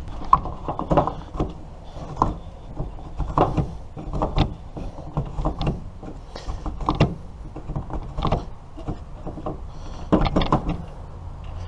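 Plastic string-trimmer head being pushed down and spun by hand to wind trimmer line onto the spool: a run of irregular plastic clicks and rattles, several a second.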